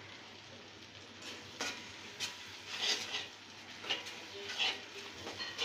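A cooking spoon stirring a thick, frying spice paste in a metal pan. After about a second and a half, about six short scrapes against the pan come at an uneven pace of roughly one a second, over a faint sizzle.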